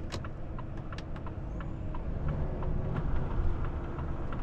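Inside the cab of a Volvo FH460 truck driving on a wet road: steady low rumble of the engine and tyres, with scattered faint irregular ticks.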